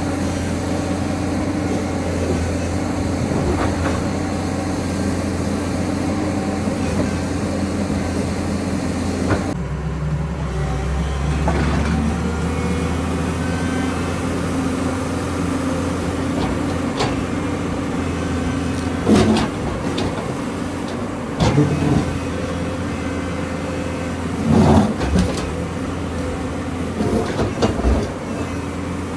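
Excavator's diesel engine running steadily while digging, its note shifting about ten seconds in. Several sharp knocks and clanks stand out over it in the second half.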